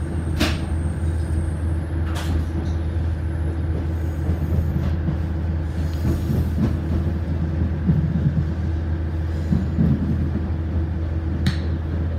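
KiHa 100 diesel railcar heard from inside the cabin while moving slowly: a steady low engine drone and running noise, with three sharp clicks, about half a second, two seconds and near the end.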